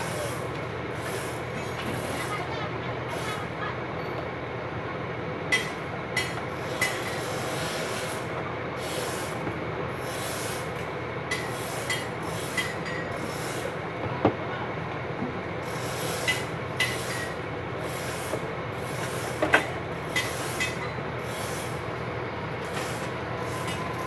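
Rubbing and scraping on a circuit board as it is handled and worked, in short repeated strokes, with a dozen or so sharp small clicks over a steady background hum.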